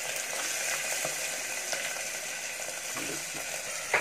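Chopped vegetables frying in hot mustard oil in a pressure cooker, with a steady sizzle. A sharp knock comes near the end.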